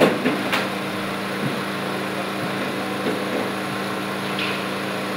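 A steady machine hum, with a few sharp knocks in the first second.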